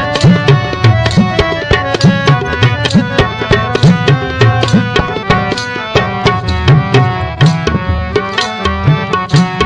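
Instrumental interlude: tabla played fast, its bass drum strokes bending in pitch, over held harmonium notes, with tambourine jingles.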